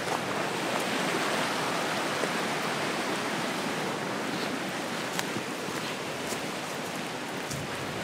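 Steady rushing of a mountain stream flowing over stones, a continuous even wash of water noise.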